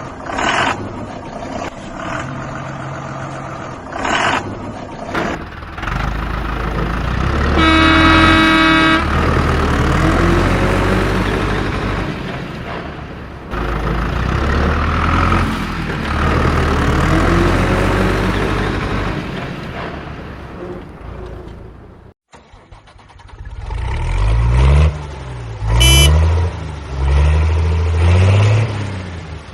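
Vehicle engines running, with a horn blast lasting about a second around eight seconds in. The sound drops out briefly after about twenty-two seconds, and the engines return with a shorter horn toot near the end.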